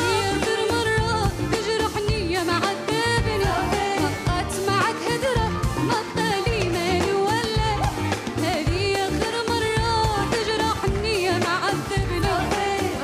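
Arabic song with a voice singing ornamented, wavering melodic lines over band accompaniment with a steady beat.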